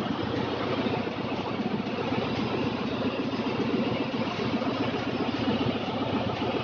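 Steady, loud drone of running machinery in a ship's engine room, engine-like, with its weight low down.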